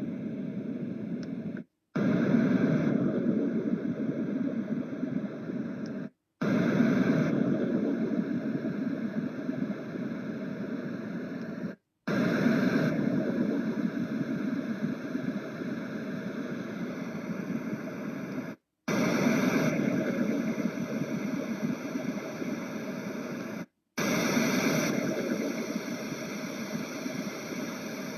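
Yogasleep Duet white noise machine playing its built-in noise sounds one after another: a steady rushing noise that cuts out briefly five times as the next sound comes on. Each new sound differs slightly in tone and starts a little louder before settling.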